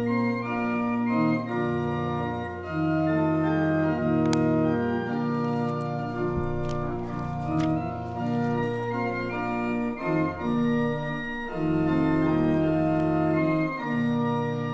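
Church organ playing the postlude after the benediction, in sustained chords that change every second or two.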